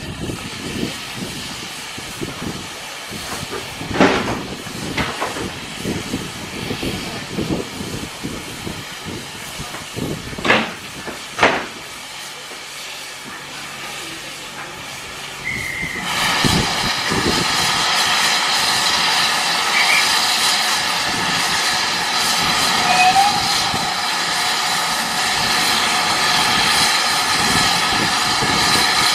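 A steam locomotive hisses steadily at the platform. Heavy carriage doors slam shut several times, about four, five, ten and eleven seconds in. From about halfway the steam hiss grows louder and stays steady.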